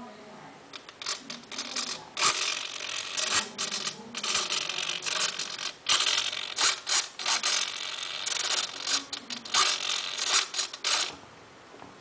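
Small Bolt RC boat's electric motor and flexible drive shaft run in short throttle bursts with the propeller spinning in the air, a harsh whirring that starts and stops again and again.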